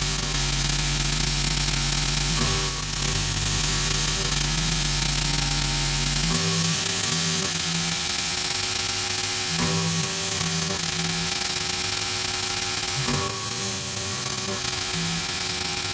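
Home-built CNC mill cutting aluminium with a 6 mm four-flute end mill at 5000 rpm: a steady hiss of cutting and coolant over a low machine hum, which changes pitch about six seconds in and then shifts in short steps as the cut moves.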